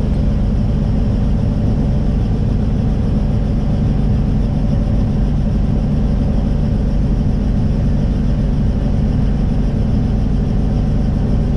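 Helicopter in flight heard from inside the cabin: a loud, steady drone of engine and rotor with a low, even hum.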